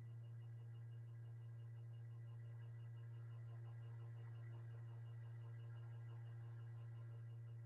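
Steady low electrical hum, like mains hum in the recording chain, with a faint pulsing high tone above it.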